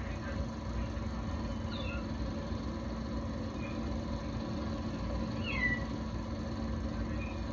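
Cats meowing: a few short, high mews, the clearest a curved cry about five and a half seconds in, over a steady low hum.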